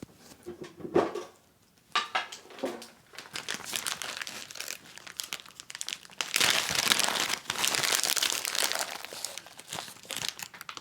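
Crinkling and rustling of a cat-treat packet being handled and rummaged in, loudest about two-thirds of the way through.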